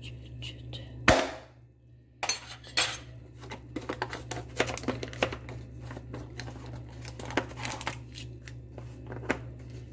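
A knock about a second in, then crinkling and tearing as a clear plastic seal is peeled off the top of a cardboard powder canister, over a low steady hum.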